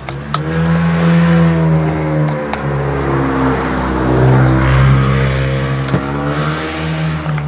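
A motor vehicle's engine running steadily for several seconds, dropping in pitch about two and a half seconds in and rising again near the end. A few short clicks are heard over it.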